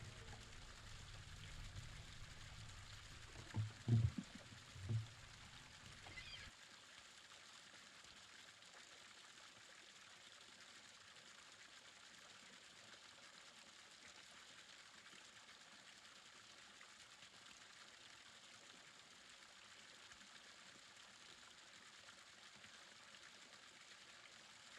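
Faint steady hiss, close to silence. In the first six or so seconds a low hum carries three soft low thumps, then the hum cuts off suddenly.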